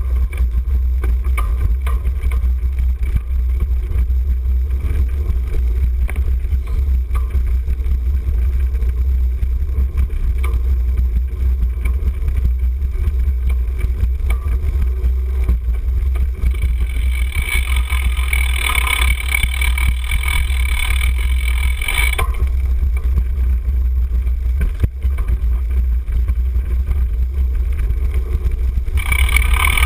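Cyclocross bike riding fast over rough dirt and leaf-covered trail, heard from a handlebar-mounted camera: a loud, steady low rumble of wind and ground vibration on the microphone. A higher-pitched mechanical buzz joins in for about five seconds past the middle and again near the end.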